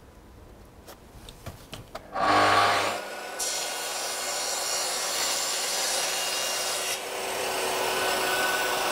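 Pull-through table saw switched on about two seconds in, loudest right at start-up, then running steadily as it cuts a cork-backed click-parquet plank to length. A few light knocks of the plank being set against the fence come before it.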